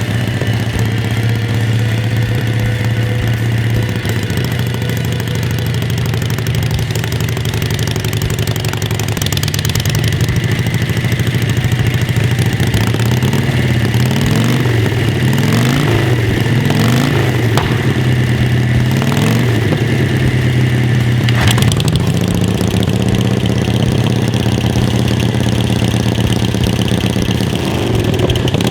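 Motorcycle engine idling steadily, then blipped up and down about half a dozen times in the middle. It settles back to idle, with one sharp knock shortly after.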